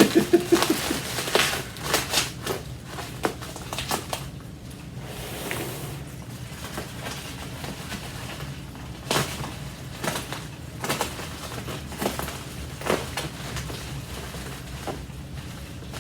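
Irregular rustles, crinkles and small knocks of packing material being pulled and handled while a large parcel is unpacked, over a low steady hum.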